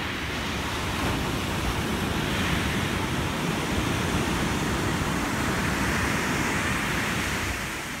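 Ocean surf breaking and washing up the beach: a steady rush that swells through the middle and eases near the end.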